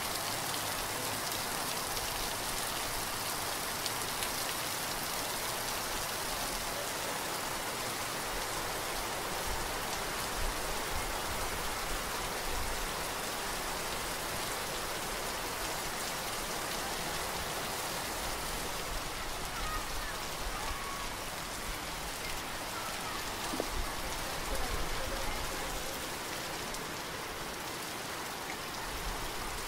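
Heavy rain falling steadily and splashing on wet ground.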